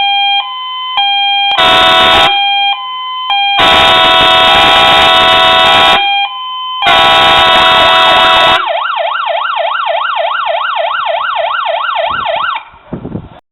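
Fire engine's electronic siren sounding a two-tone hi-lo pattern that switches about every half second, with three blasts of its air horns over it. It then changes to a fast warbling yelp tone for about four seconds before cutting off.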